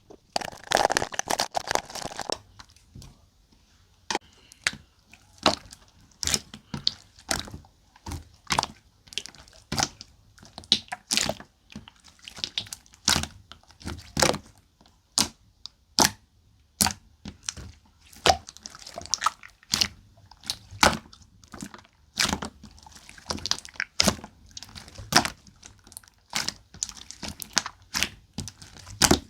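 Pearl slime being pressed and squeezed by hand, giving a run of sharp pops and clicks about one or two a second, with a denser crackling stretch in the first two seconds.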